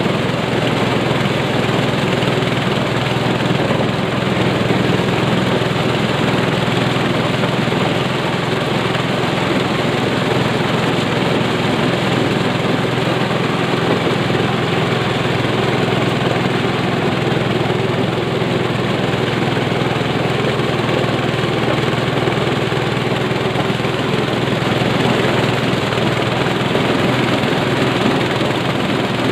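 Engine-powered mobile corn sheller running steadily under load as whole cobs are fed into its hopper and shelled: a loud, even mechanical din over a low engine hum.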